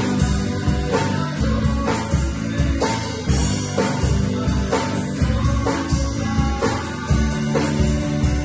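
Small live band playing a worship song: guitar and electric bass over a drum kit keeping a steady beat.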